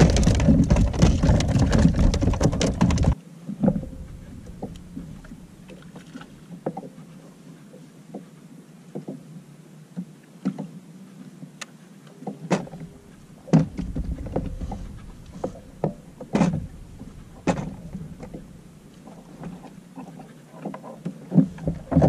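A loud, steady rush of wind noise that cuts off abruptly about three seconds in. After that, quieter short clicks and knocks as tackle and bait are handled on a plastic fishing kayak.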